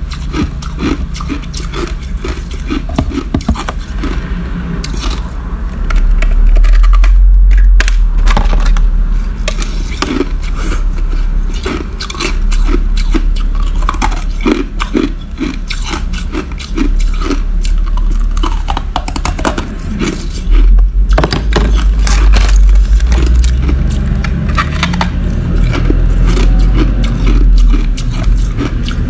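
Packed crushed ice being bitten and chewed close to the microphone: dense, crisp crunches and cracks throughout, over a deep low rumble.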